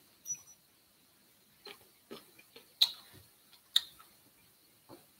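Eating sounds close to the microphone: about six quiet, irregularly spaced clicks and smacks from a person chewing and handling food.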